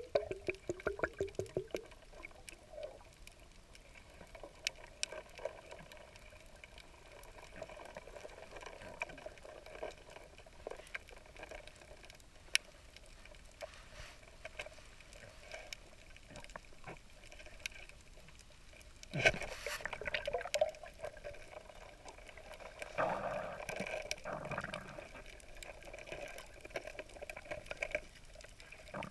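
Underwater sound through a submerged camera: a faint steady wash of water full of scattered sharp clicks and crackles, with a louder rush of water and bubbles about two-thirds of the way through and a shorter busier stretch soon after.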